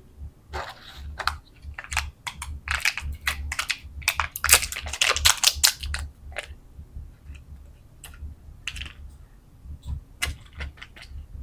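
Candy and its packaging being handled and unwrapped: an irregular run of crisp clicks and crackles that grows into a dense flurry in the middle, then thins out again.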